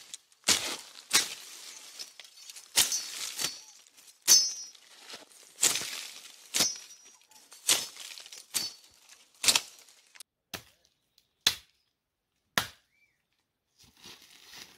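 Dry wood being chopped free with repeated sharp blows, about one a second, some followed by a brief ringing tone. The blows come further apart and stop about two seconds before the end.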